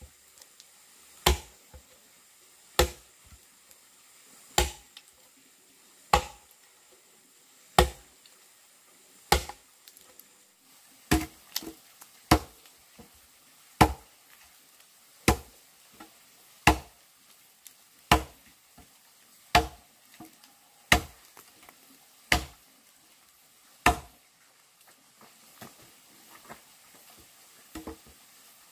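Axe chopping into a wooden log: a steady run of sharp, heavy strikes about every second and a half, then only light, faint knocks over the last few seconds.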